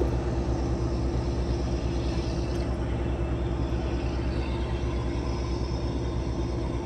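An engine running steadily: a low, even drone with a fast regular pulse and a constant hum.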